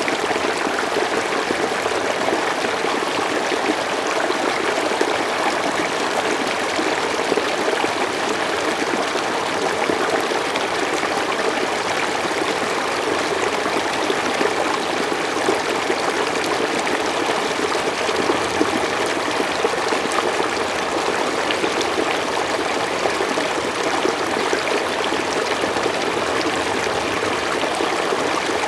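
Mountain stream flowing steadily over rocks: an even rushing and splashing with a fine trickling texture.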